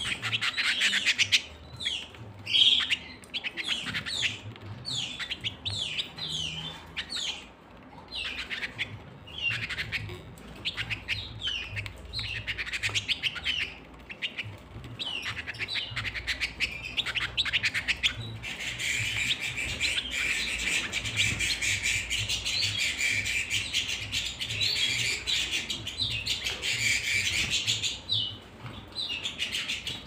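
Caged domestic canaries calling in quick, falling chirps, one after another. Past the middle a canary breaks into a continuous rapid trilling song that lasts about ten seconds before the separate chirps return.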